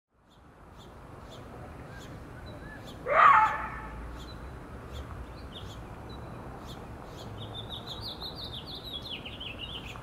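A coyote gives one loud, short bark about three seconds in, over birds calling: evenly spaced high chirps, then a quick run of falling high notes near the end.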